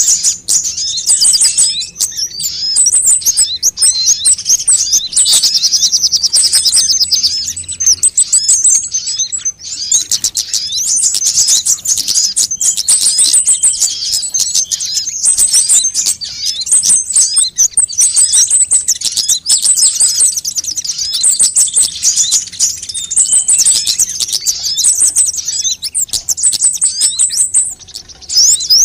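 Recorded sunbird (Indonesian 'kolibri') calls used as a lure: dense, rapid, high-pitched chittering trills with short, high whistled notes repeating over them about once a second.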